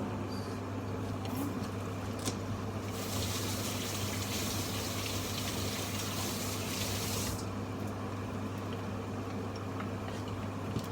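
A kitchen tap runs for about four seconds, starting and stopping abruptly, over a steady low hum.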